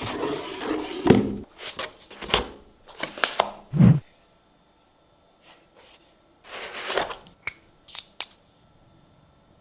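Packaging being handled in a small room: rustling and tearing, several sharp knocks and a dull thump, then after a short pause a brief rustle and a few light clicks.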